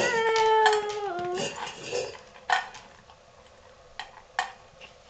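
A drawn-out vocal cry lasting over a second, dropping in pitch at its end, then a few sharp clinks of dry dog kibble against a metal dog bowl as the dog eats and the kibble is dropped in.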